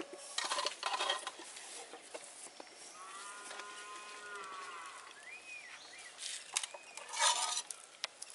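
A cow mooing once, a long call of about two seconds starting around three seconds in. Short squishing and scraping noises near the start and near the end come from masala paste being worked by hand in a metal bowl.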